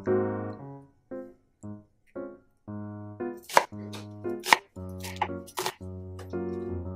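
Light background music throughout; from about three seconds in, about five sharp knife chops through an onion on a wooden cutting board.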